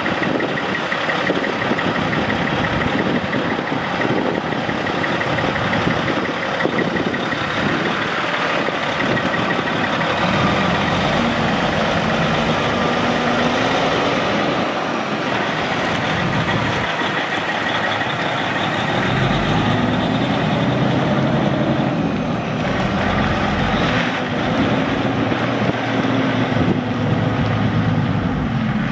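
Caterpillar C15 Acert inline-six turbo diesel of a 2005 Kenworth T600 semi truck running. Its pitch rises and falls a few times in the second half as engine speed changes.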